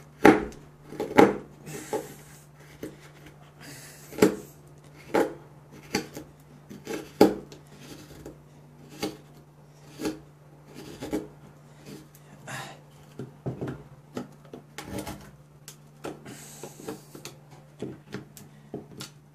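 Mora Companion carbon-steel scandi knife whittling a pine block: short scraping cuts into the wood, roughly one a second. The edge has gone dull and the knife no longer cuts well.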